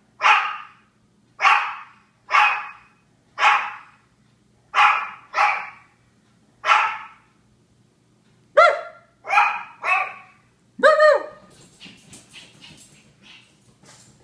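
Small dog barking: single sharp barks about one a second, seven in a row, then after a short pause four more, higher and more tuneful, the last one drawn out. Faint clicking follows near the end.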